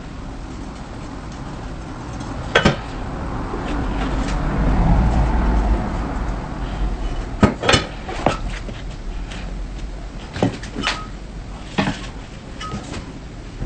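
Scattered sharp knocks and taps of a knife and fruit pieces on a cutting board, about eight in all, the loudest near the start and about halfway. A broad rush of background noise swells and fades in the first half.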